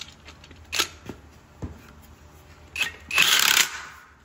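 A few light clicks and knocks of tools being handled, then about three seconds in a loud burst of under a second from a cordless power ratchet turning a bus wheel-hub nut through a Tite-Reach extension wrench.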